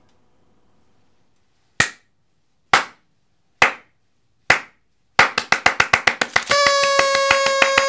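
Slow hand clapping: four single claps about a second apart, then from about five seconds in the clapping speeds up into fast applause. About a second and a half later a held musical tone enters and rings under the claps to the end.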